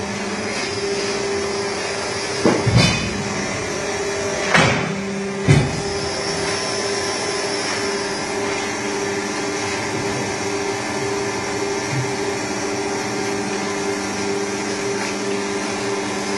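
Ponse double-sided auto-feeding cutting machine running with a steady hum, and a few short thumps near three, four and a half, and five and a half seconds in.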